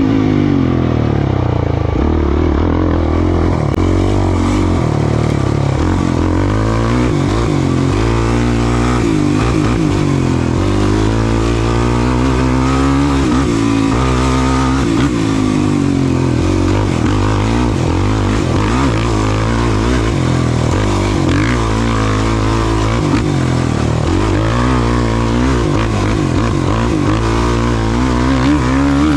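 Off-road race vehicle's engine running hard, its pitch rising and falling over and over with throttle and gear changes.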